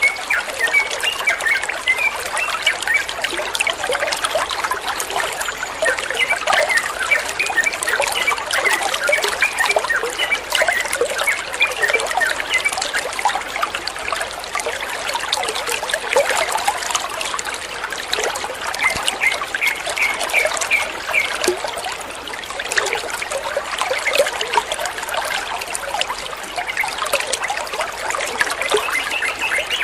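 Water trickling steadily, with birds chirping in short quick runs of high notes over it.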